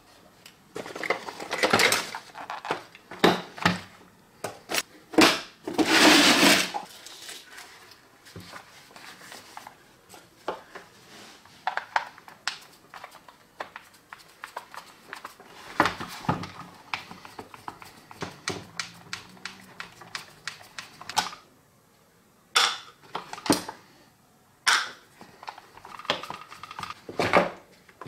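Handling clatter from an old AEG electric drill and its rusty metal carry case: knocks, rattles and clicks of plastic and metal as the drill and cord are lifted out and the housing is taken apart. There are two longer scraping rustles early on.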